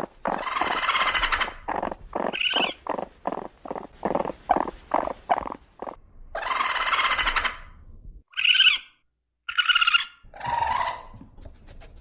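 Raccoon calling: a run of short chattering calls about four a second, twice broken by a longer harsh, rasping call, then a few shorter higher-pitched chirps near the end.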